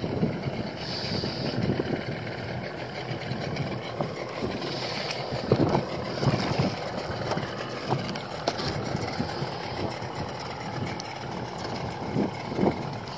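Wind buffeting the microphone, making a steady rumbling noise, with a few scattered knocks and clatters.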